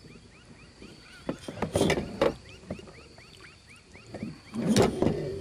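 Kayak paddle strokes, with knocks and splashes at the hull; the loudest comes near the end. In the background, short rising chirps repeat steadily at about four a second.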